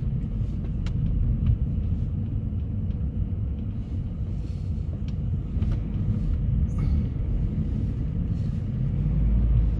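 Car driving along a snow-covered road: a steady low rumble of engine and tyres on winter tyres, swelling briefly near the end.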